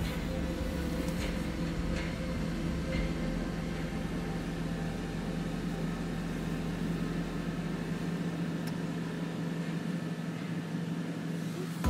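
Steady hum of a car's engine and cabin, heard from inside the car, with a low rumble underneath that fades away about eight seconds in.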